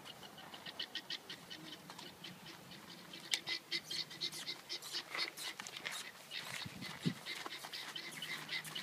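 A yearling colt's hooves and people's footsteps crunching on a gravel lane. The steps come closer and grow louder from about three seconds in.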